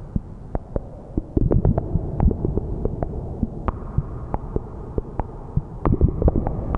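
Ciat Lonbarde Peterlin analog synth through the TX-6 mixer's onboard reverb, putting out an irregular, dense crackle of clicks and pops over a low rumble. It gets louder about a second and a half in.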